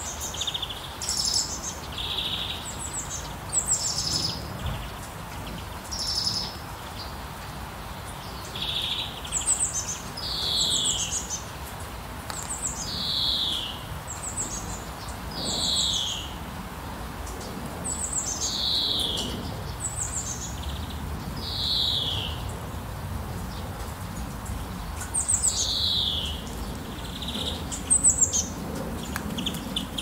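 Birds chirping over steady rain. A bird repeats a short high call every two to three seconds, a trill followed by a note that slides down in pitch, against an even hiss of falling rain.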